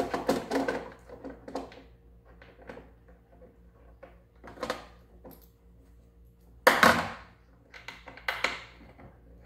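Hands handling small screws and hardware inside an RC boat hull: irregular clicks and rustles, the loudest about seven seconds in.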